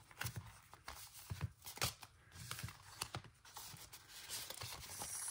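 Stack of papers and small cards being handled and shuffled by hand, dry paper rustling with many short crackles and light taps.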